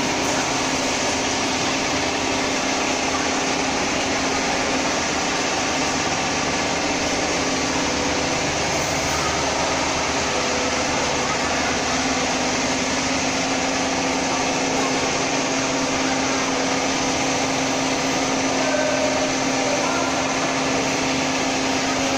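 Steady drone of factory machinery running: an even hiss with a constant hum underneath.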